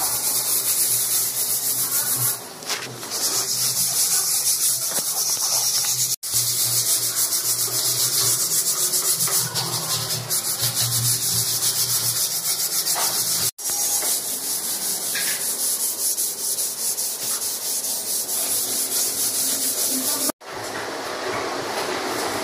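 Sandpaper rubbed back and forth by hand on the wooden edge of a dining table before polishing: a scratchy rubbing in quick strokes. It comes in several stretches that break off suddenly, and gives way to a quieter, steadier hiss in the last two seconds.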